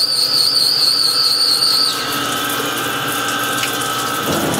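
CNC lathe turning 17-4 stainless steel under a flood-coolant stream: a steady rushing wash of coolant and machining noise. A high steady tone cuts off about two seconds in, and a lower steady tone carries on after it.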